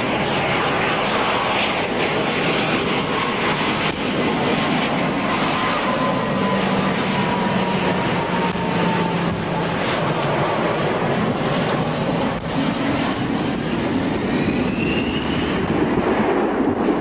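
Jet airliner engines running loud and steady, with a whine that slides down in pitch midway and another that rises near the end.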